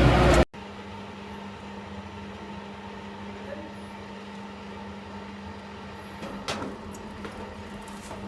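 Loud machine noise stops abruptly half a second in, leaving a steady, quieter machine hum with a single low tone. A few faint knocks come about six and a half seconds in.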